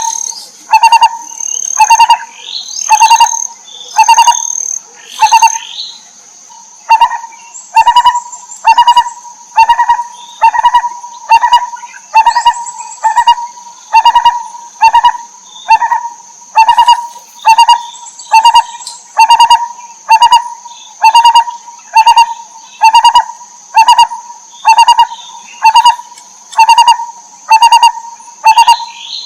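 A barbet calling: a loud, hollow note repeated about once a second, with a brief pause about six seconds in. A steady high-pitched whine runs underneath throughout.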